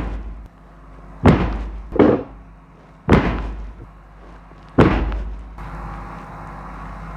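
Four loud, sudden thumps at irregular intervals, each dying away over about half a second. A steady low hum follows about two-thirds of the way in.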